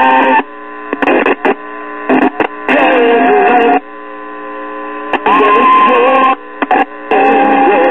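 Early-1940s Emerson five-tube AM radio playing a station through its speaker, the programme coming in stretches over a steady hum and whistling tones. It is squealing at 910 on the dial with its original AVC filter capacitor in circuit, a squeal that a substitute capacitor cuts down.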